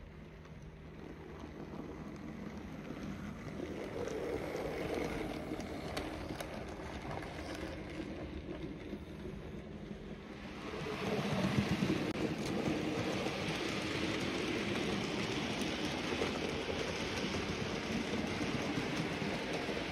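Model railway train running on the track: the locomotive's small electric motor hums and the wheels rumble over the rails, getting louder and hissier about eleven seconds in as a goods train passes close by.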